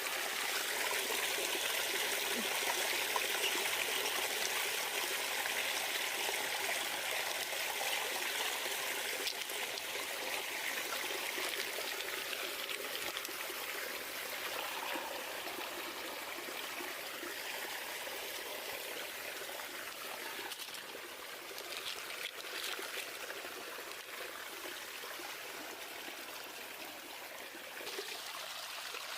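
Water running in a steady trickling, pouring flow that slowly grows quieter.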